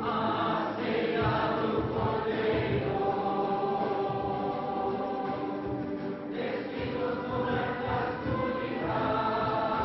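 A congregation singing a liturgical hymn together in chorus, with long held notes.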